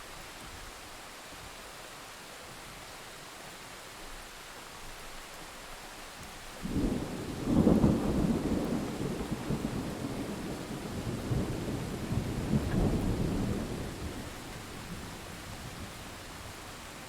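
Steady rain falling, with a roll of thunder that breaks in sharply about a third of the way through, peaks a second later and rumbles on for about seven seconds before fading back under the rain.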